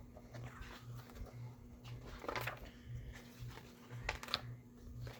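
Faint handling noises, light rustles and small clicks, over a low steady hum that pulses about twice a second.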